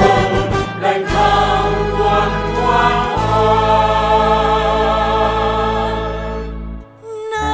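Mixed choir singing with a string orchestra and bass drum, a big full chord held for several seconds, then a brief break near the end before the music picks up again.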